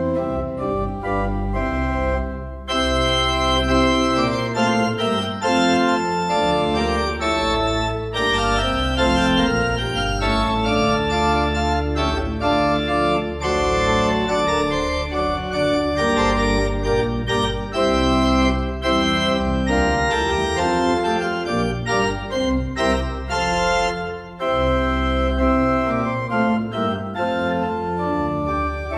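Pipe organ playing: full sustained chords over low pedal notes, changing every second or so, with brief breaks between phrases about two and a half seconds in and again near the end.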